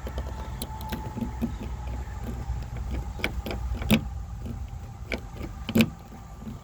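Keys and a car's door latch being handled: scattered metallic clicks and knocks, two louder knocks about four and six seconds in, over a low steady rumble.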